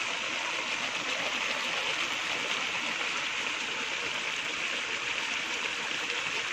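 Chicken curry simmering in a nonstick wok, its sauce bubbling and sizzling in a steady hiss as it finishes cooking.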